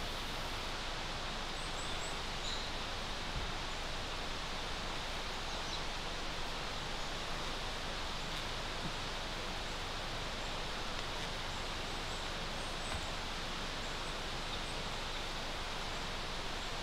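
Steady outdoor background hiss, even and unchanging, with a few faint, short, high bird chirps about two seconds in and again around twelve seconds.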